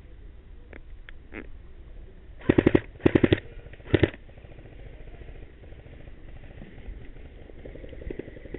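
Airsoft guns firing three short rapid-fire bursts in quick succession, after a few faint single shots.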